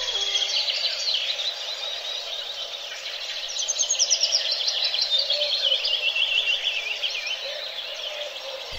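Birdsong: several birds chirping, with a fast trill of repeated notes falling steadily in pitch from about three and a half seconds in.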